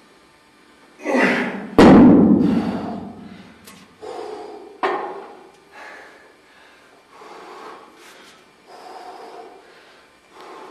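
A man breathing hard, with a forceful exhale about every second and a half as he works through heavy one-arm dumbbell rows. About two seconds in, a heavy iron dumbbell lands on the floor with a loud thud.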